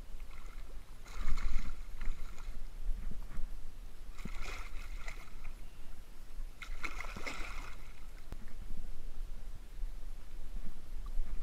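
Water splashing in three short bursts a couple of seconds apart as a hooked striped bass is drawn through shallow water to hand.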